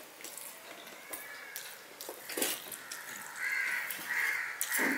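A bird calling, about four short calls in quick succession in the last two seconds. A couple of light clinks of steel plates come as vegetables are served from one steel plate onto another.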